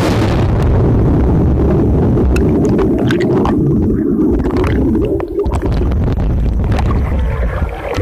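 Swimming-pool water heard from a microphone underwater: a loud, muffled low rumble of churning water and bubbles, scattered with small bubble clicks as a swimmer breathes out underwater. The rumble eases briefly about five seconds in.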